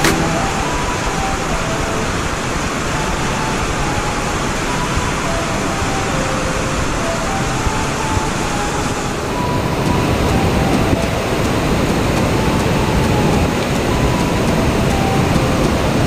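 Steady rushing of a waterfall cascading down over rocks, growing a little louder about nine seconds in.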